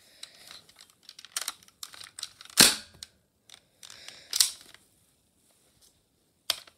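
A sharp gunshot-like bang about two and a half seconds in, the loudest sound, with a second smaller bang later, among faint rustling and clicking from toys and fabric being handled, and a short click near the end.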